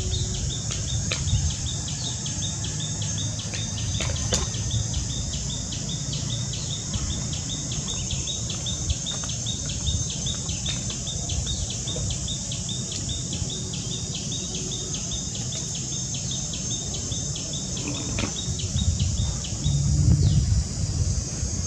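Steady high-pitched insect drone with a quick, even run of repeated chirps, several a second, that stops near the end; a low rumble underneath, louder near the end, and a few faint clicks.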